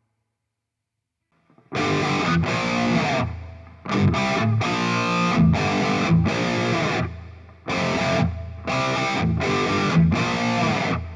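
Electric guitar played through a distorted preset (2D) of the Playwell Tank-G effects unit. After about a second and a half of silence come three groups of short, rhythmic chord strums, each group separated by a brief pause, with the last one fading out at the end.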